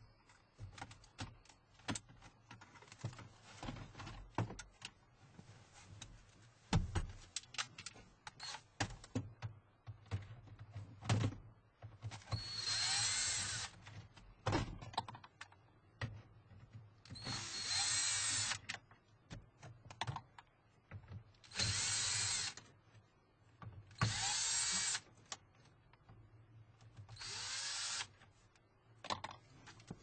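Clicks and knocks of plastic dash trim being pulled off a 2008 Dodge Avenger's dash, then a cordless drill/driver run in five short bursts of a second or two each, backing out the factory radio's mounting screws.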